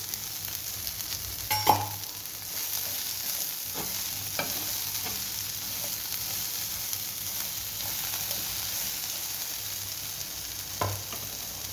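Spiced masala sizzling in hot oil in a pan while a spatula stirs it, with a few clinks of the spatula against the pan.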